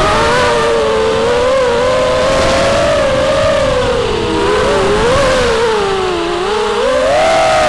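The brushless motors and propellers of a 250-size FPV racing quadcopter on a 4S battery whining, as picked up by its onboard camera. The pitch wavers with the throttle, dips twice and climbs again near the end.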